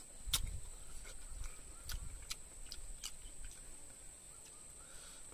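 Close mouth sounds of someone eating rice and chicken: wet clicks and smacks while chewing, the loudest just after the start and a few more scattered after it. A steady high-pitched whine runs behind.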